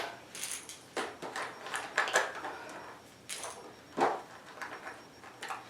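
Faint, scattered light knocks and rustles, irregularly spaced about half a second to a second apart.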